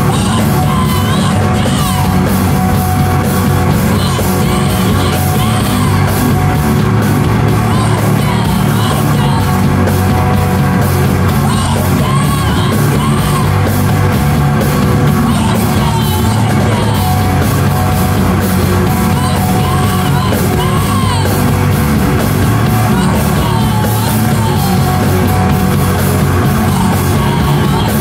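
Live rock band playing loud and steady, with drums and yelled, sung vocals.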